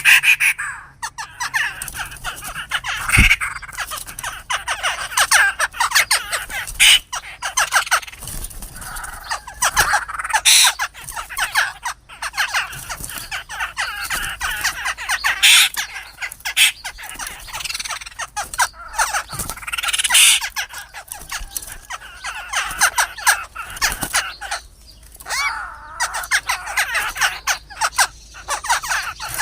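Black-throated laughingthrushes fighting each other, calling harshly: dense, unbroken squawking and chattering.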